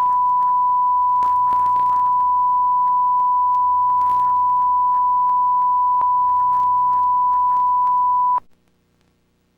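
A steady, pure single-pitched test tone of the kind used in broadcast alerts, with faint crackles under it, cutting off abruptly about eight seconds in and leaving near silence.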